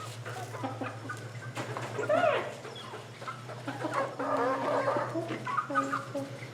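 Backyard hens clucking and calling in their cage. One louder arching squawk comes about two seconds in, then a run of short, quick clucks near the end, over a steady low hum.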